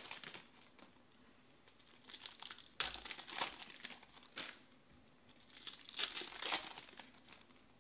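Foil wrappers of 2020 Panini Select baseball card packs crinkling and tearing as they are handled and ripped open. The sound comes in three or four bursts of crackle, with a sharp snap a little under three seconds in.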